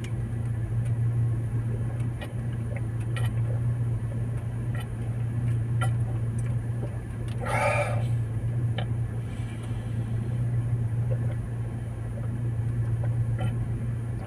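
A steady low hum, with scattered faint clicks and one brief louder sound about eight seconds in.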